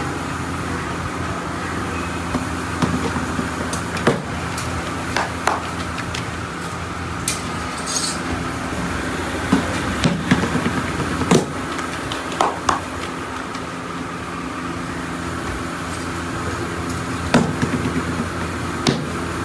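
Naan dough being slapped and patted by hand into rounds on a floured counter: irregular sharp slaps, over a steady mechanical hum.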